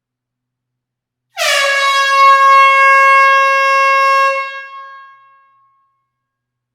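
Air horn sounding one long blast of about three seconds, a steady high note that slips down briefly in pitch as it starts. It then dies away over a second or so, echoing in a closed hall.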